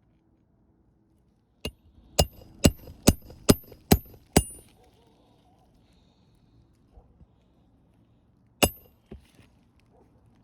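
Hammer driving a roofing nail into an asphalt shingle: a light tap, then six ringing metal-on-metal strikes about two a second, and one more strike near the end.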